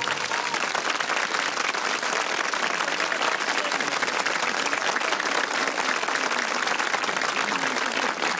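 Seated audience applauding: dense, steady clapping that holds at an even level throughout.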